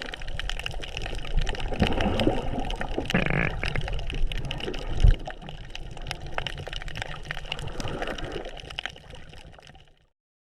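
Water sloshing and splashing close to the microphone, with many small clicks and crackles. A sharp knock about five seconds in; the sound cuts off abruptly near the end.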